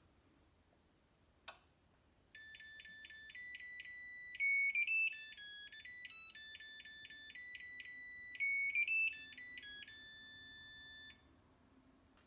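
Zojirushi BB-SSC10 bread maker playing its electronic completion tune, a melody of clean beeping notes lasting about nine seconds and ending on one long held note: the signal that the baking course has finished and the bread is done. A single click comes just before it.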